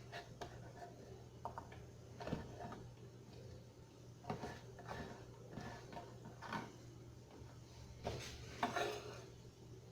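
Faint kitchen handling sounds: scattered light knocks, clicks and clinks of utensils and containers as ingredients are gathered and added to a food processor bowl, over a low steady hum.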